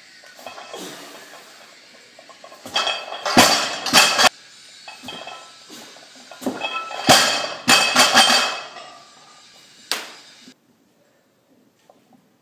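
Iron plates clanking and rattling on an axle barbell during a clean and jerk. There are several sharp metallic clanks around three to four seconds in and again around seven to eight seconds in, and one last knock near ten seconds.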